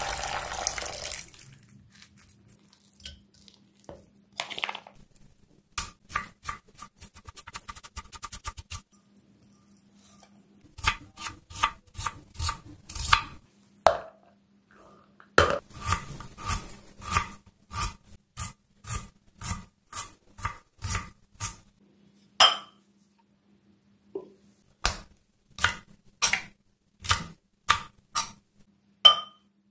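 Water poured into a plastic bowl of split chickpeas (chana dal) for about a second. Then a long run of sharp, evenly spaced knocks and clinks of food preparation, ending with a kitchen knife chopping green chillies on a wooden cutting board in steady strokes.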